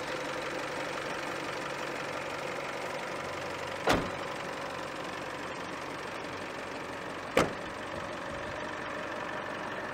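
A pickup's engine idling steadily, with two sharp thuds, one about four seconds in and another about three and a half seconds later.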